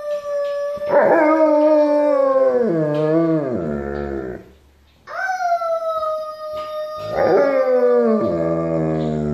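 Alaskan Malamute howling: long drawn-out howls that slide down in pitch, in two bouts with a short break about four seconds in.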